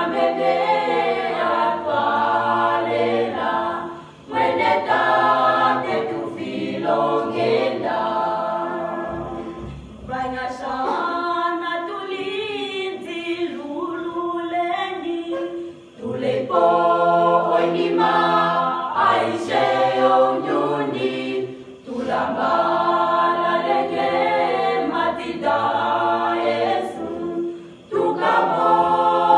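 Mixed-voice school choir singing a cappella in parts, with low male voices under higher female voices. It sings in phrases of about six seconds, with a brief breath-break between each.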